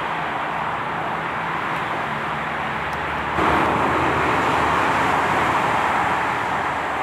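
Steady outdoor ambient noise with no clear single source. It steps up suddenly about three and a half seconds in and eases back near the end.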